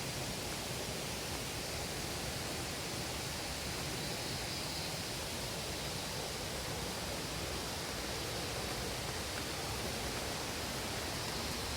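Durian Perangin waterfall rushing in a steady, even hiss of falling water.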